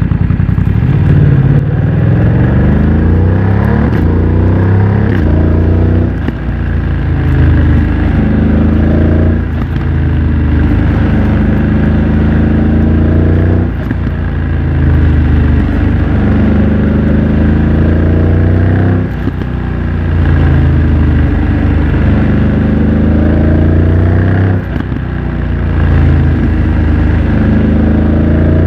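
BMW F900 XR's parallel-twin engine through a MIVV X-M1 aftermarket exhaust, accelerating repeatedly: the pitch climbs and then drops back at each quick upshift of the quickshifter, many times over.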